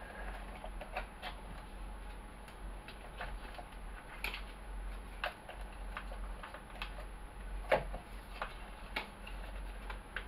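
Irregular light clicks and taps of hard plastic parts being handled as a LiPo battery is plugged in and stowed in the cab of a plastic RC model bulldozer, with one louder click about eight seconds in.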